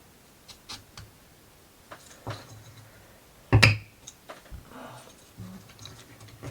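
Small plywood model parts clicking and tapping together as they are handled and pushed into place, with one much louder sharp wooden knock about three and a half seconds in.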